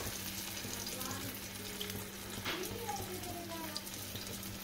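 Hot oil sizzling steadily in a frying pan around masala-marinated fish pieces as they shallow-fry.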